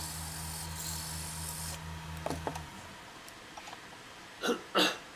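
Wood lathe motor humming with a pulsing beat while sandpaper on a block rubs the spinning wooden ring with a hiss. The sanding stops after about two seconds and the lathe switches off a second later. Two brief sharp noises follow near the end.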